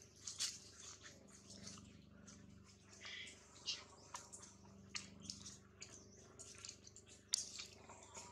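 Small, scattered clicks and crackles of dry leaf litter as macaques shift and move on it, with a brief high squeak about three seconds in.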